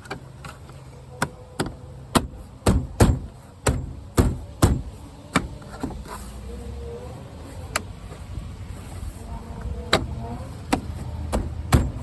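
A string of sharp, irregular plastic knocks and clicks, about fifteen in all and closest together in the first half, as the replacement interior door handle and its trim piece are pressed and tapped into place on a van's door panel.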